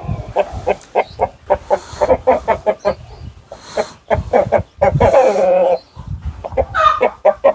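Brahma chickens clucking in quick, short repeated notes, with a longer drawn-out call about five seconds in and another rising call near the end.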